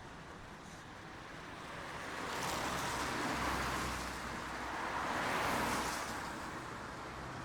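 Steady rain hiss with two rising-and-falling rushes of noise, the first a couple of seconds in and the second about two seconds later, each with a low rumble under it.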